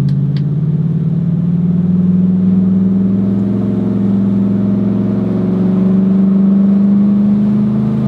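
Exhaust of a BMW E53 X5 4.4i V8 with its mufflers deleted and some catalytic converters removed, heard from inside the cabin while driving. It is a steady low drone, louder than stock, that rises slowly and slightly in pitch.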